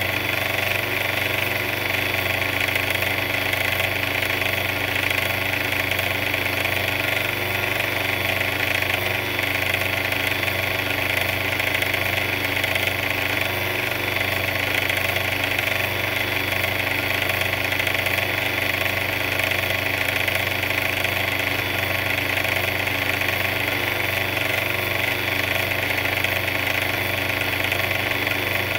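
A mixer's engine running steadily at an idle, an unbroken even drone with no change in speed.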